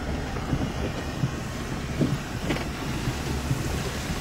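Inside a vehicle driving on a rough dirt road: steady engine and road rumble, with a few short knocks and rattles.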